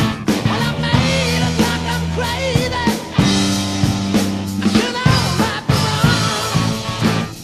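Rock music with a singing voice over drums, bass and guitar.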